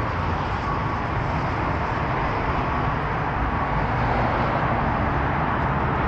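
Steady road traffic noise from a busy city road, a continuous even rumble and hiss of passing cars.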